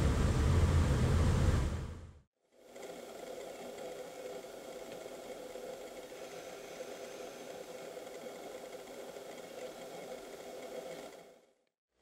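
A heavy low rumble that fades out about two seconds in, then after a brief gap a steady engine hum, like a vehicle idling, which stops shortly before the end.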